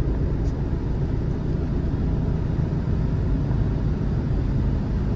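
Steady engine and road noise inside a moving Chevrolet car's cabin: a deep, even rumble with no distinct events.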